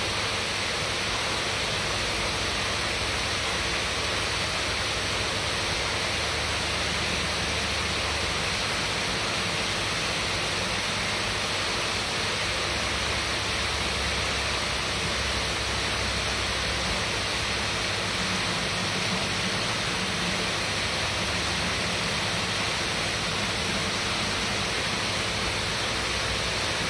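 Steady rushing of running water at an even level throughout, with a faint steady hum underneath.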